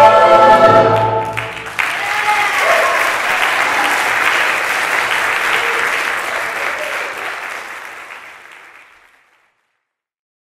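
A choir holds its final chord, which cuts off about a second and a half in, and then an audience applauds. The applause dies away over the last few seconds.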